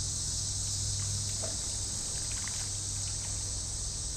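Steady high-pitched insect chorus of late-summer crickets and other insects, an even unbroken buzz over a low steady hum.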